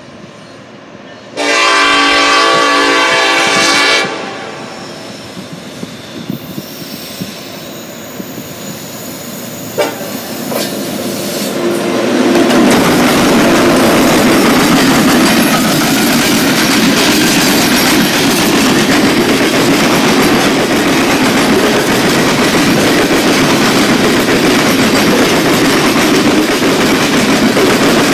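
A Norfolk Southern SD70ACe diesel locomotive sounds one long horn blast about a second in, then closes in and passes at close range with a second SD70ACe. Its engine, and the wheels of the coal hopper cars behind it, make a loud steady rumble with clickety-clack on the rails.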